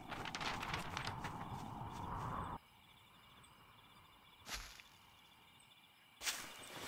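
Cartoon sound effects: a rising rushing whoosh that cuts off suddenly, then a quiet stretch with a single short knock, then footsteps and rustling near the end.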